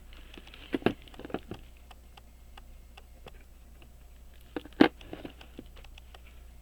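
Light clicks and taps of tweezers and tiny parts being handled on a pocket watch movement, a few close together about a second in and one sharper click a little before five seconds in, over a low steady hum.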